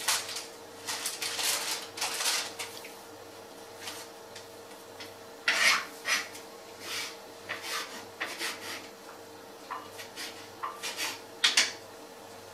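A child's hands rubbing and pressing a ball of pizza dough on a floured wooden table: irregular scuffing strokes in short clusters, the loudest about halfway through and again near the end.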